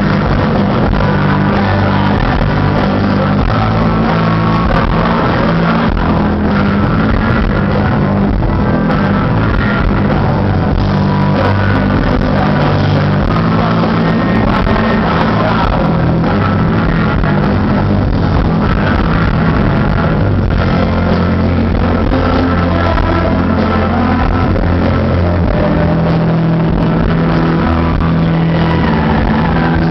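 Rock band playing live: electric guitar, bass and drums, loud and steady through the PA.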